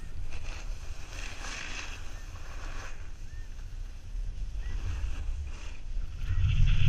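Snowboard sliding and scraping over packed snow, the hiss swelling with each turn, with wind rumbling on the microphone, louder near the end.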